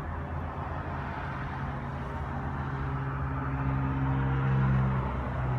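A vehicle engine running at a steady low pitch. It grows somewhat louder about four to five seconds in, then eases off.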